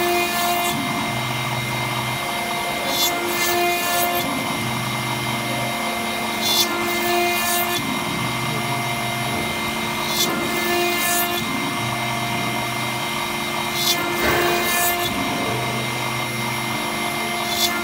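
CNC engraving-milling machine spindle cutting into a brass plate under running coolant, with a steady high whine. The cut goes in a repeating cycle about every three and a half seconds: a low hum lasting about a second, then short high scraping bursts as the cutter works the brass.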